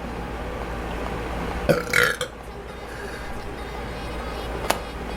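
A woman burping once: a short belch about two seconds in, lasting about half a second. A brief sharp click comes near the end.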